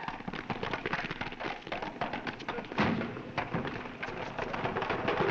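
Wooden barrels rolling and clattering over a paved street, with one heavy thud about three seconds in.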